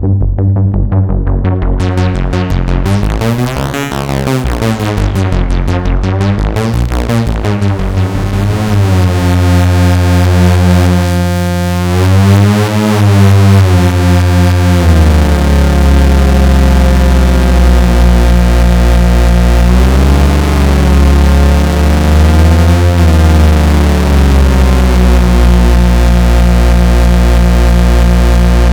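Sequential Circuits Pro-One monophonic analog synthesizer playing: a fast run of repeating notes for the first several seconds, then long held bass notes whose tone sweeps up and down several times.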